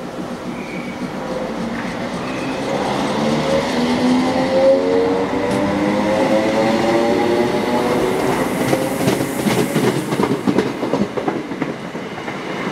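Class 321 electric multiple unit pulling away, its traction motors whining and rising in pitch as it accelerates. Several seconds in, a quick run of clicks and clatter from the wheels over rail joints as the carriages pass.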